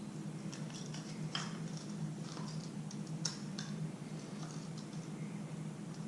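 Scattered light clicks and ticks of hands handling fishing line and small tackle, over a steady low hum.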